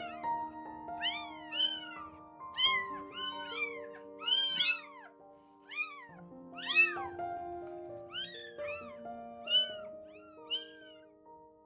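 Young tabby kitten mewing over and over in short, high calls that rise and fall in pitch, more than one a second, stopping shortly before the end.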